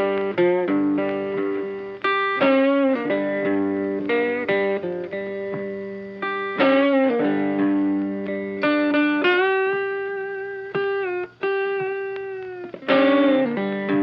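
Background music: an electric guitar playing a slow melody of held notes, some bent in pitch.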